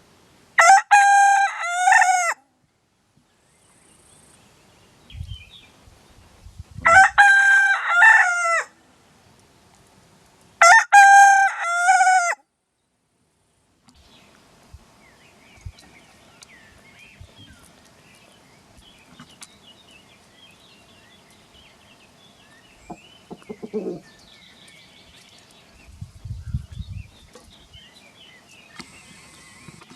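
Silkie rooster crowing three times, each crow about two seconds long and a few seconds apart. After the third crow comes a quieter stretch of faint bird chirps and a few soft knocks and thumps.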